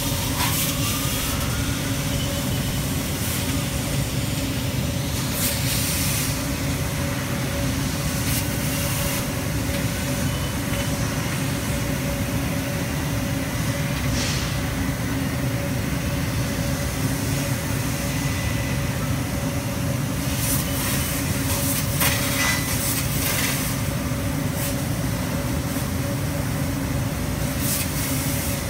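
CNC laser cutter running as it cuts knife blanks from sheet metal: a steady machine hum over a low rumble, with brief hissing bursts every few seconds.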